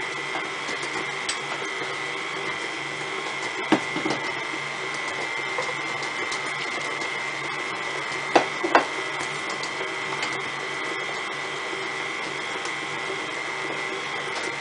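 KitchenAid stand mixer running steadily, its motor whining as the paddle beats cookie dough. A few sharp knocks cut through, once about four seconds in and twice close together about eight seconds in.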